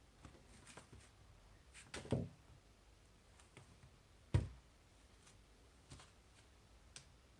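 A knife cutting down through a slime cake: a few faint clicks and two short thunks as it knocks against the surface beneath, the louder one a little over four seconds in.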